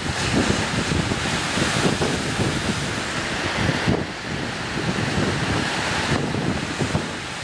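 Wind buffeting the microphone in gusts over the steady wash of surf on a shoreline. No gull calls are heard.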